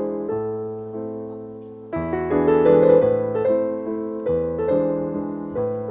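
Soft background piano music: a held chord fades away for the first two seconds, then a slow run of notes and chords begins about two seconds in.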